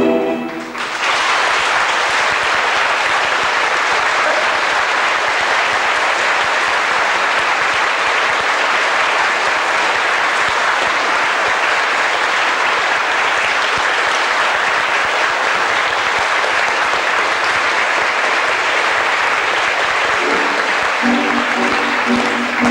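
Audience applauding loudly and steadily for about twenty seconds. Near the end the dance music comes back in under the clapping.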